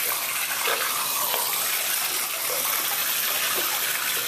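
Tap water running steadily into a bathtub.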